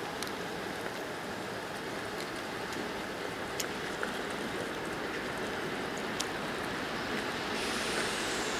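2TE116 twin-section diesel locomotive approaching slowly, its engines and running gear making a steady, noisy rumble that grows slightly louder, with a few faint clicks. A higher hiss joins near the end.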